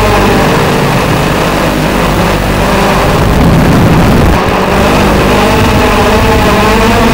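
TBS Gemini mini hexacopter's electric motors and propellers buzzing in flight, the pitch shifting as the throttle changes, with a louder surge about halfway through.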